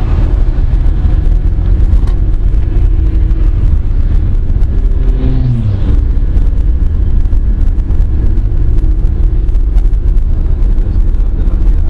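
Steady low rumble of engine and road noise inside a car travelling at highway speed, with a brief tone that falls in pitch about five seconds in.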